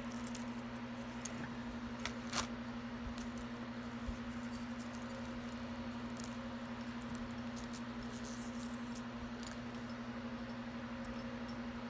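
Small metal jewelry pieces clinking and tapping as they are handled, a few sharp clicks scattered through, over a steady low hum.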